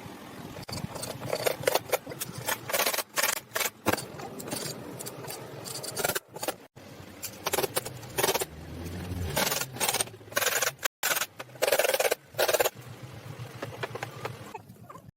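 Workshop handling of wood: a busy run of scrapes, knocks and clatter, cut off abruptly several times.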